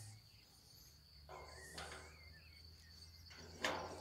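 A quiet outdoor background with a steady, high-pitched, cricket-like trill. A brief rustle comes about a second and a half in, and a single sharp knock follows near the end.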